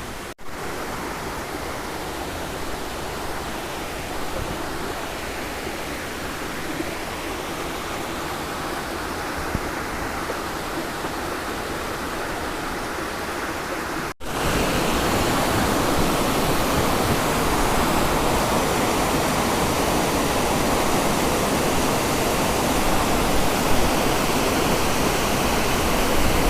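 Waterfall water rushing steadily. It breaks off for a moment about halfway through and comes back louder and fuller.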